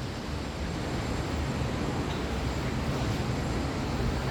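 Steady outdoor background noise, a low rumble with an even hiss over it and no distinct events.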